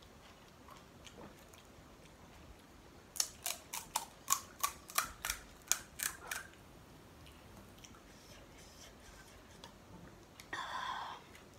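Hollow fried panipuri (golgappa) shells cracking as they are broken open with the fingers: about a dozen sharp cracks in quick succession over some three seconds. Near the end, a brief scrape of a spoon in a steel bowl of chickpea filling.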